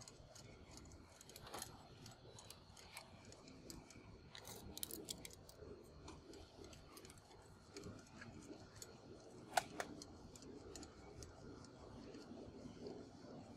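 Faint, scattered metallic clicks and ticks from hands working the Y-Type belt cleaner's spring tensioner hardware, with one sharper click about two-thirds of the way through.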